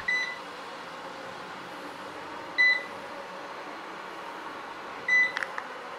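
Robot vacuum cleaner running with a steady whirr, and a short high beep three times, about two and a half seconds apart.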